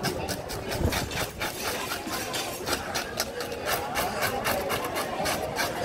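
A fish scaler scraping scales off the skin of a large trevally in quick, even strokes, about five or six rasps a second.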